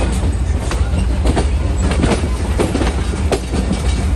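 Passenger train running along the track: a steady low rumble with irregular sharp clicks and knocks from the wheels.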